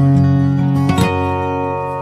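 Background music on plucked guitar: a note or chord is struck about a second in and left ringing.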